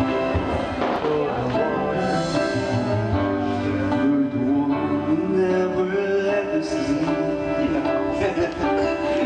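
Karaoke backing track of a slow pop ballad playing through a TV, with a man singing the opening lyric lines along with it.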